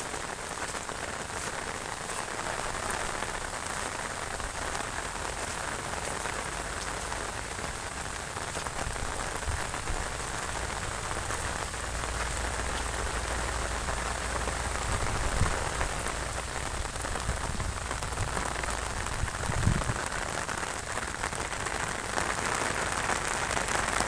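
Heavy monsoon rain falling steadily, a constant even hiss. About ten seconds in, a low rumble joins it, with two brief thumps.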